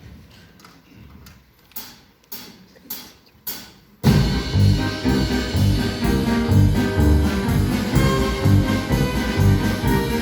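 Four evenly spaced sharp clicks, a count-in, then a band with brass and drum kit comes in loudly about four seconds in, playing an instrumental introduction.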